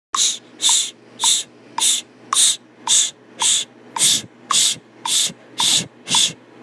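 Homemade GarageBand ringtone starting abruptly: a steady beat of sharp, hissy hits, about two a second, each opening with a short click, over a faint low drone.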